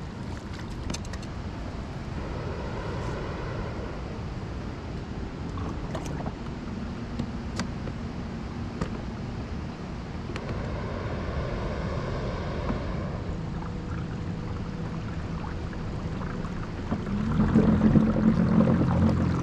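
Motor kayak moving across calm water: a steady wash of water along the hull, with a few light clicks. Near the end a louder, steady low hum comes in, the kayak's built-in Minn Kota electric drive pushing it along.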